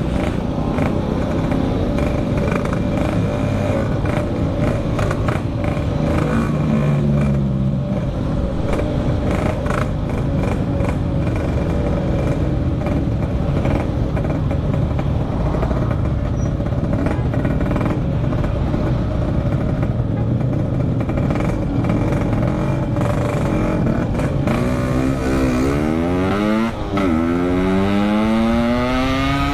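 Yamaha RX-King two-stroke single-cylinder motorcycle running at speed. Near the end it revs up hard twice in a row, its pitch climbing steeply each time.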